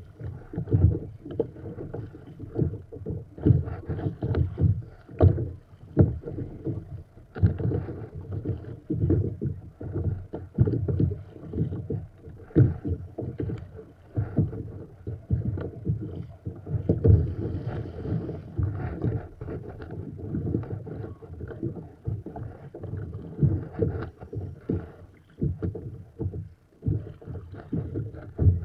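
Kayak paddle strokes splashing in choppy water, the double-bladed paddle dipping on alternate sides, with wind on the microphone. The sound comes in uneven surges rather than a steady rhythm.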